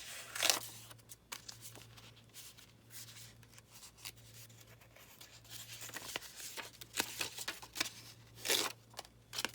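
Paper rustling as pages and paper ephemera are handled and sorted through, in short scattered crinkles and swishes with a busier patch in the second half. A faint steady low hum runs underneath.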